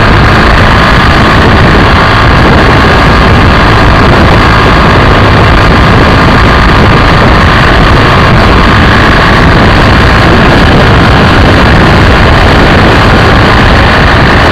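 BMW F800ST motorcycle riding at road speed, its parallel-twin engine running under loud, steady wind and road noise on a low-mounted camera's microphone.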